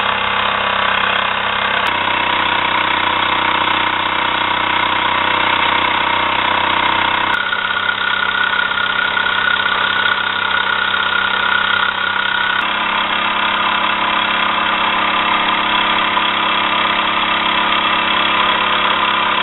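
Jensen live steam toy engine running steadily: a dense, continuous running noise with a few faint steady tones. Its character changes abruptly three times, about 2, 7.5 and 12.5 seconds in.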